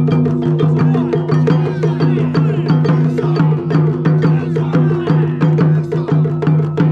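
Japanese taiko drum ensemble playing, with quick sharp strikes in a fast rhythm over a steady sustained low tone.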